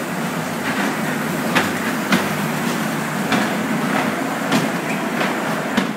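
Small ride-on kiddie train running along its track: a steady rumble with irregular clacks from the wheels on the rails.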